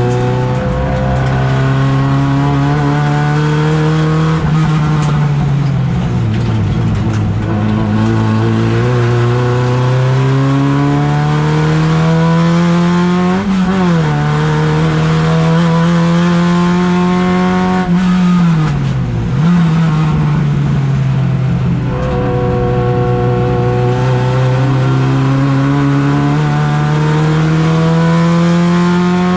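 Race car engine heard from inside the cabin on track, revving hard under load. Its pitch climbs steadily and drops back sharply several times, at gear changes and lifts for corners.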